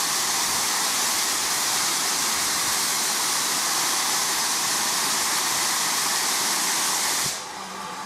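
Southern U class 2-6-0 No. 1638 blowing off at its safety valves: a loud, steady hiss of escaping steam. About seven seconds in it cuts off sharply, leaving a much quieter hiss.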